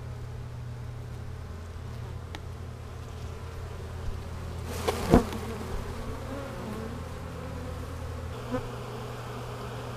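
A swarm of honey bees buzzing steadily around a removed honeycomb as the bees are shaken off it into a cardboard box, with one sharp knock about five seconds in.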